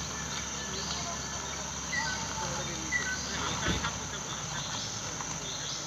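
Insects droning steadily in a high, even pitch, with a few short bird chirps about two and three seconds in and a brief low thump just before four seconds.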